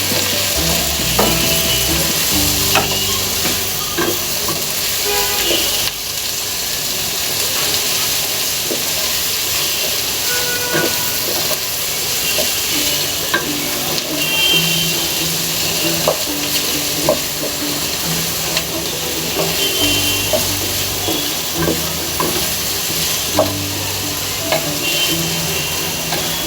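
Egg frying with prawns in hot oil in a pan, sizzling steadily, while a spatula stirs it with scattered scraping clicks against the pan.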